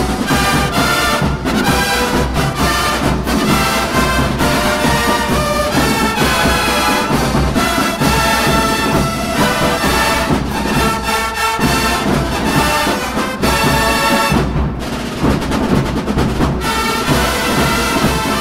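A drum and bugle corps playing: massed brass bugles sounding held chords and melody over a steady beat of drums.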